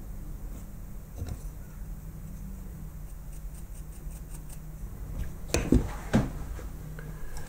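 Small metal clicks and scrapes of a screwdriver working apart the brass mechanism of a 1950s aircraft instrument, then two sharper knocks a little past halfway as a sub-assembly comes loose and is set down on the workbench.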